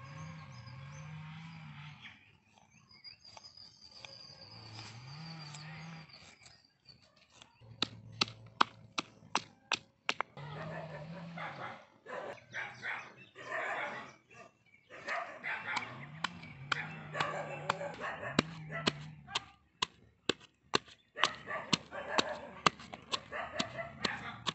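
Pestle pounding in a small stone mortar, crushing garlic and chillies: sharp knocks about three a second, starting about eight seconds in. Animal calls come and go between the strokes.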